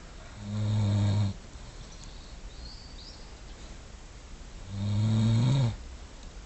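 A man snoring loudly while asleep: two long, low snores, each about a second long and about four seconds apart.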